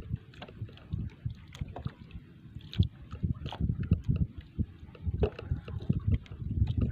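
Small waves slapping against the hull of a wooden outrigger boat, heard as irregular low knocks, with wind on the microphone.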